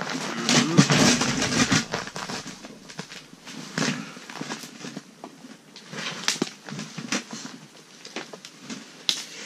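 Rustling with a scatter of short clicks and knocks from hands handling fishing gear at an ice hole, loudest in the first two seconds.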